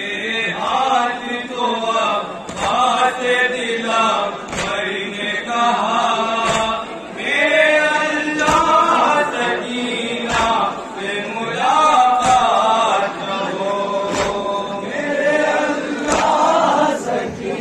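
A man recites a noha, a chanted mourning lament, into a microphone in a sustained melodic voice. Sharp thumps about every two seconds keep time with it, the crowd's matam (hands striking chests).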